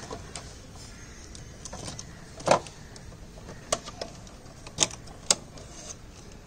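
A handful of sharp plastic clicks and knocks from hands handling wire connectors and the plastic housing of a split AC indoor unit, the loudest about two and a half seconds in.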